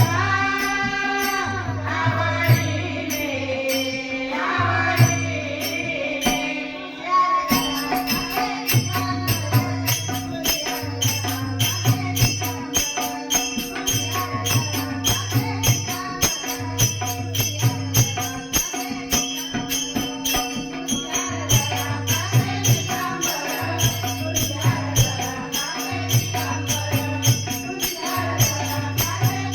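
Marathi devotional bhajan: a woman's voice sings a drawn-out line over a steady drone for about the first seven seconds, then the mridang and jingling hand percussion come in with a fast, steady beat under the singing.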